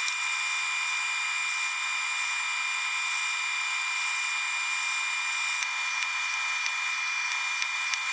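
Metal lathe running with a steady high whine as a number 25 twist drill in the tailstock chuck drills the spinning spacer stock, boring the tap hole for a 10-24 thread; a few faint ticks come in the second half.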